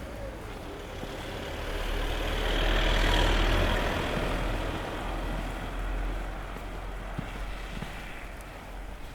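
A motor vehicle passing by on a snowy road: a low rumble with tyre hiss that builds, is loudest about three seconds in, then fades away.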